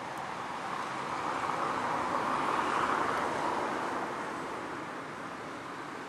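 A passing car: a rushing sound that swells to its loudest about three seconds in, then fades away.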